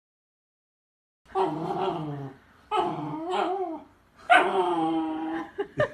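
A dog making three drawn-out, wavering vocal calls, each about a second long, starting about a second in.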